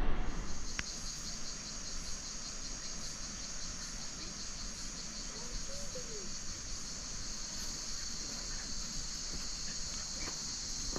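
A steady, high-pitched chorus of insects chirring without a break in the creekside bush.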